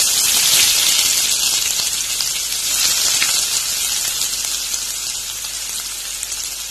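Sliced onions sizzling in hot oil with fennel seeds in a stainless steel pan, just after they go in. A loud, dense sizzle that is strongest at the start and slowly dies down.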